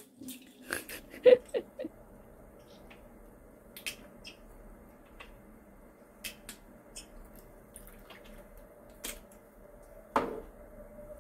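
A kitten playing with toys: scattered light clicks and knocks, with a quick cluster of louder ones a second or so in and another single knock near the end.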